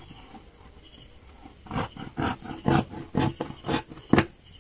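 Scissors snipping through four-way stretch knit fabric: about six cuts at roughly two a second, starting about a second and a half in, the last the loudest.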